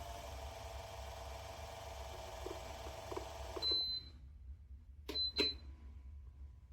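Electric wall fan's motor running with a steady hum and whine, which drops away just after a short electronic beep a little over halfway through: the fan being switched off or turned down from its control. About a second and a half later come two more quick beeps with clicks.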